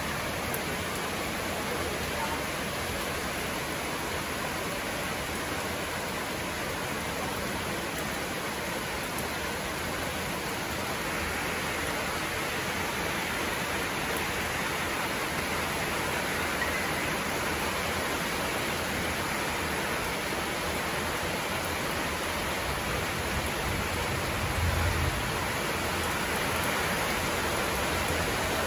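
Heavy rain falling steadily, a dense even hiss that grows a little heavier about halfway through. A brief low thud comes near the end.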